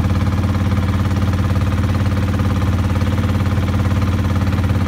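Engine of a small wooden river motorboat running steadily under way: a low, even drone with a fast, regular pulse.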